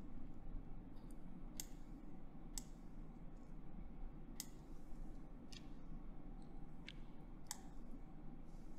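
Computer mouse button clicks: a handful of sharp single clicks about a second apart, over a faint low steady hum.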